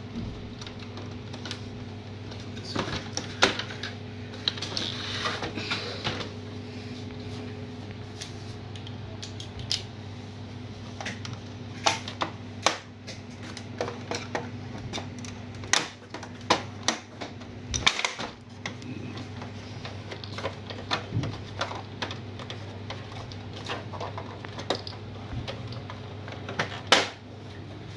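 Irregular clicks, snaps and knocks of plastic housing panels and a screwdriver as a laser printer is taken apart, over a steady low hum.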